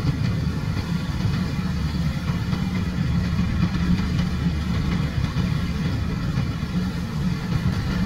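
Rice combine harvester's diesel engine running steadily as the machine cuts ripe rice, a steady low drone.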